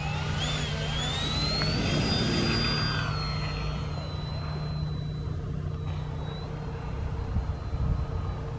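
Electric motor and propeller of a foam-board RC model Kodiak throttling up for takeoff: a whine that rises in pitch over the first two seconds, then holds at a slightly lower steady pitch as the plane climbs away.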